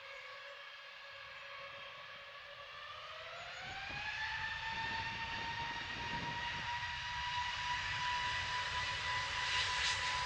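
easyJet Airbus airliner's jet engines spooling up to takeoff power: a whine rises in pitch about four seconds in, then holds steady while the engine noise grows louder as the takeoff roll begins.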